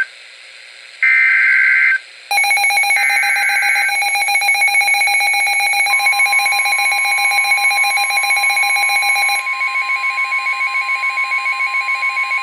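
Emergency Alert System SAME data bursts, a harsh warbling screech of digital tones, followed by a rapidly pulsing electronic alarm beep. About six seconds in, the long steady NOAA Weather Radio attention tone starts under the beeping.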